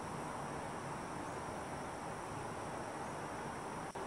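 Steady hiss of background room noise, with one short click near the end.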